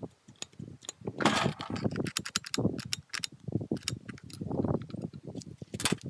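Clicks, taps and rattles of small plastic and metal chainsaw parts being handled and fitted around the carburetor, with a few brief scrapes.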